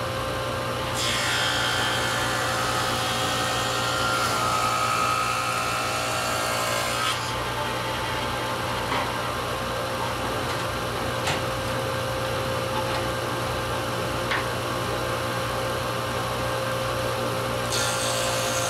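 Table saw spinning a freshly sharpened carbon steel dado set, running steadily. It cuts a groove along a poplar board from about a second in for about six seconds, then runs free with a few light knocks. Near the end a second cut begins, a dado across the grain.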